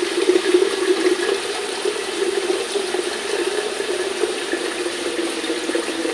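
Water running from a tap into a stainless steel jug, a steady rushing splash as the jug fills.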